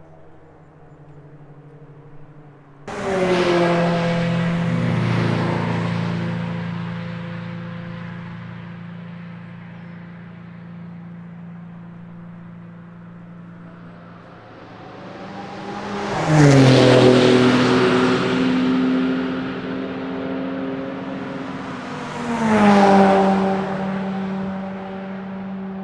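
Cars driving past at speed one after another, each engine note dropping in pitch as it goes by. A loud pass begins abruptly about three seconds in and fades slowly. Another car builds up and passes past the middle, and a third passes near the end.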